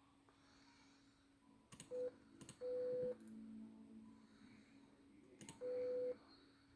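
Morse code beeps from Google's Morse trainer: a click and a short dot beep, a click and a longer dash beep, then after a pause a click and another dash beep, all at the same steady pitch.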